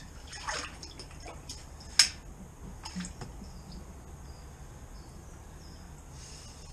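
Drain rods being worked in a sewage-flooded manhole chamber, giving a few sharp clicks and knocks, the loudest about two seconds in. Under them runs a faint steady low hum.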